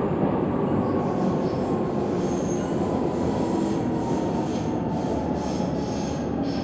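Munich U-Bahn Type C train running, heard from inside the car: a steady rumble with a faint whine slowly falling in pitch. Thin high wheel squeals come and go from about two seconds in.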